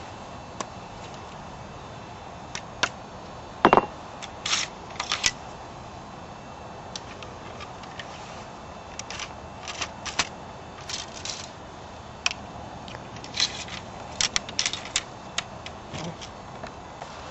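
Scattered metallic clicks and ticks from handling a .50-calibre Traditions percussion muzzleloader's lock while clearing a misfire, with one louder knock about four seconds in.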